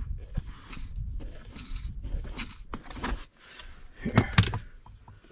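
A replacement heater blower motor's plastic squirrel-cage fan spun by hand, turning with only a light rustling whirr that is quiet. A couple of loud knocks about four seconds in.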